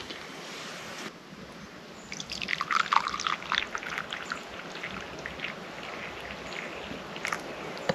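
Liquid pouring for about two seconds, then tapering off into scattered drips.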